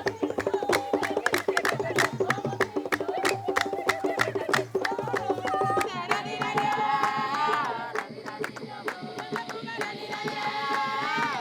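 Village celebration music: hand drums beaten in a fast, steady rhythm under group singing. About halfway through the drumming thins and wavering high voices with pitch glides come to the front.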